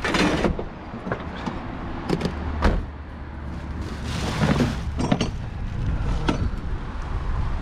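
Junk being rummaged through and handled in a rubbish pile: several knocks, rattles and rustles of objects being moved, over a low steady rumble.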